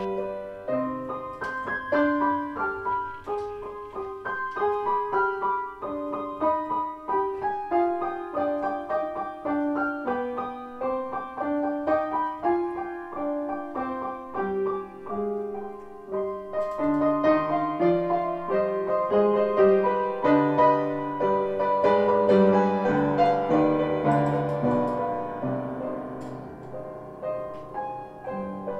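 Background music: solo piano playing a flowing, steady run of notes.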